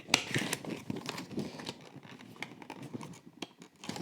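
A diecast model car's packaging being handled and opened by hand: irregular crinkling, rustling and small clicks of plastic and cardboard, busiest in the first couple of seconds.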